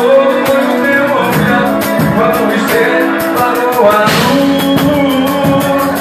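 Live band music: held keyboard chords over guitar and a drum kit, with a steady beat of cymbal strokes.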